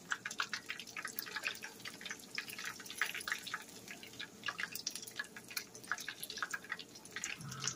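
Chicken wings deep-frying in hot peanut oil in a skillet: a steady, irregular crackle of many small pops.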